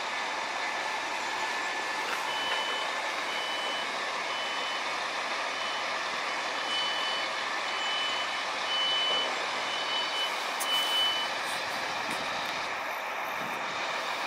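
Repeated short high beeps, about one a second for some nine seconds, from a Sprinter diesel multiple unit's door-closing warning before departure, over a steady background noise.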